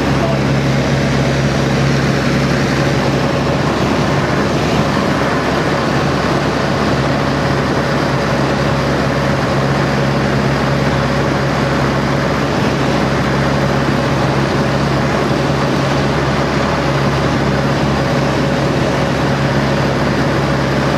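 de Havilland Chipmunk's four-cylinder Gipsy Major engine and propeller running steadily in level flight, heard from inside the cockpit over a constant rush of airflow.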